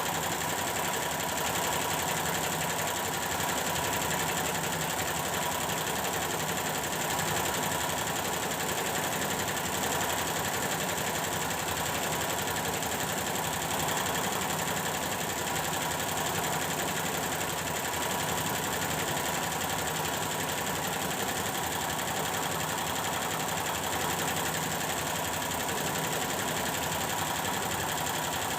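Computerized embroidery machine stitching steadily at a fast, even rate, on a test run after its DU power supply was repaired.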